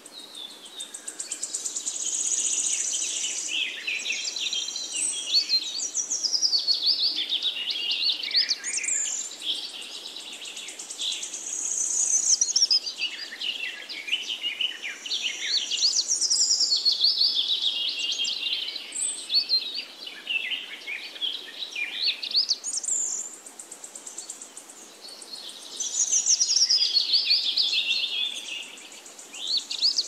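Birds singing and calling: many quick, high notes sliding up and down, mixed with high buzzy trills, in phrases that swell and fade every few seconds.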